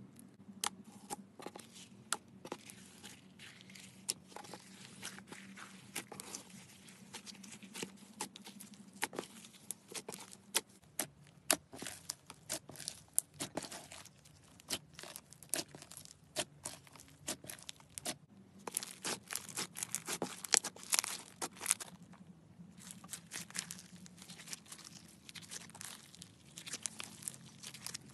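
Foam-bead slime being worked by hand, the beads crackling and popping in a dense run of sharp clicks, thickest about two-thirds of the way through.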